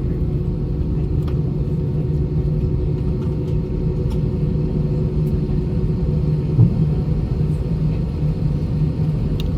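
Cabin noise of an Airbus A320-232 taxiing: the steady low rumble of its IAE V2500 engines at taxi power, with a steady hum. A brief thump comes about six and a half seconds in.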